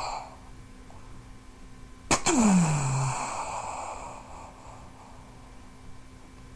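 Mouth-made war-machine sound effect: a sharp crack about two seconds in, then a hissing burst with a tone sliding down in pitch, fading out over about two seconds.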